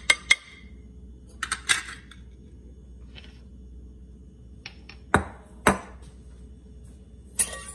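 Scattered clinks and knocks from a plastic measuring spoon tapping a glass mixing bowl as dry ingredients are tipped in. There are a few sharp clicks early on and two heavier knocks a little past the middle.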